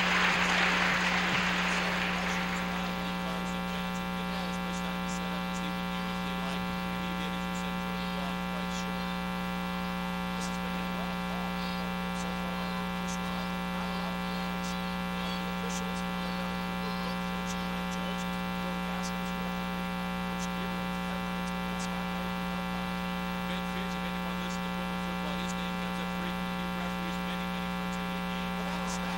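Steady electrical mains hum on an old videotape's sound track: a low buzz with a dense row of overtones that never changes. A wash of noise fades away over the first two to three seconds, and a few faint ticks sound now and then.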